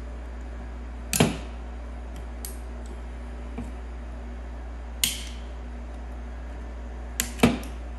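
Wire cutters snipping the wire leads and nickel strips inside a DeWALT 20V Max battery pack: sharp single snips about a second in and around five seconds in, then two in quick succession near the end, over a steady low hum.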